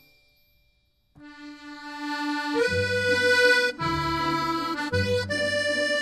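Background music. One piece fades out to near silence in the first second, then a new piece begins with held notes, and a bass line joins about two and a half seconds in.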